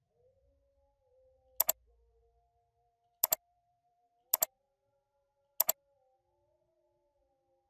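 Computer mouse clicked four times, each click a quick press-and-release pair, spaced about one to one and a half seconds apart.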